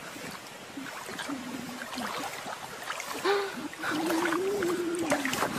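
Shallow water splashing and sloshing as a pug paddles its legs while held up by its harness, with a long drawn-out wavering vocal tone in the second half.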